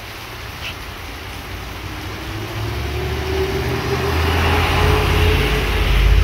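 Steady rain on a wet street, with a passenger van driving closer on the soaked road. Its engine and tyre hiss grow steadily louder over the second half.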